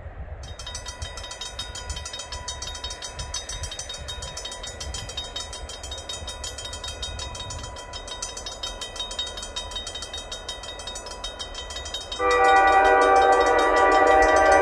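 Railroad grade-crossing warning bell starts ringing about half a second in, a rapid, steady repeating ring, over low wind rumble on the microphone. About twelve seconds in, the approaching Great Lakes Central Railroad locomotive's horn sounds loudly as a chord of several notes and is held.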